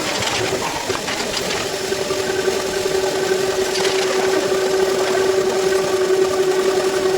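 Ernault Cholet metal lathe running with a steady mechanical hum, with a few brief scraping clicks over it.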